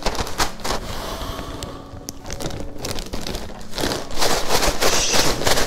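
A plastic zip-top bag being shaken and crinkled, with crushed potato chips, panko breadcrumbs and seasoning rustling inside as the breading is mixed. The crinkling grows louder about four seconds in.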